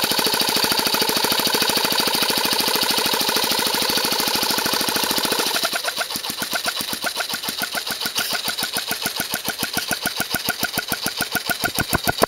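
Cox .049 model engine converted to run on compressed air, running with a fast, even mechanical pulsing alongside the small Bon-Aire compressor that feeds it. About halfway through the beat changes to a slower, more sharply separated chuffing.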